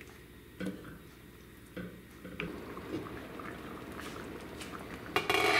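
Salsa verde with egg and nopales simmering in a pan, bubbling and popping steadily. A wooden spoon knocks against the pan a few times in the first couple of seconds. A brief, louder rush of noise comes near the end.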